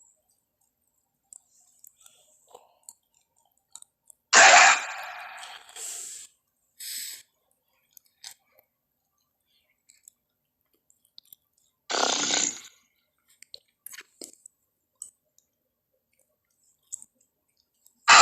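Pachycephalosaurus creature vocal sound effects from the Jurassic Park films. A loud, short throaty call comes about four seconds in and another about twelve seconds in, with a few softer snorts and small clicks between them.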